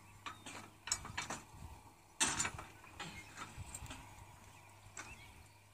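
Scattered metal clinks and knocks from the steel hitch of a horse-drawn disc harrow being lifted and lined up for its pin, the loudest a short clatter about two seconds in.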